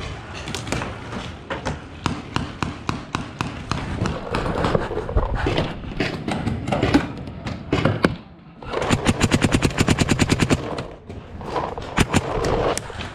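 Paintball markers firing. Scattered single shots come first, then a fast, even burst of rapid shots lasting about two seconds, starting about nine seconds in, and a few more shots near the end.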